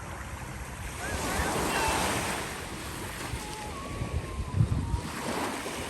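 Surf washing onto the beach, with one wave swelling up about a second in, and wind buffeting the microphone in low gusts near the end.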